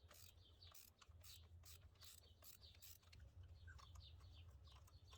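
Faint ratchet clicking, about two or three clicks a second, as a spark plug is loosened and backed out, with birds chirping faintly in the background.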